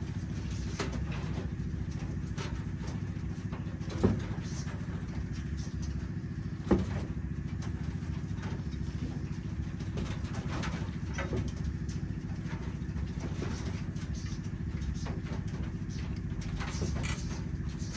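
A steady low mechanical hum, like an idling engine or motor, with scattered light clicks and two sharp knocks, one about four seconds in and one near seven seconds.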